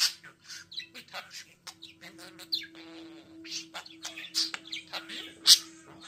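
Budgerigar warbling: a fast, busy chatter of short high chirps and clicks, with one loud sharp chirp near the end.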